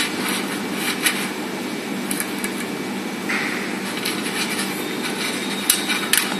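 Steady hum and fan noise of a laser welding machine running, with a few short sharp clicks.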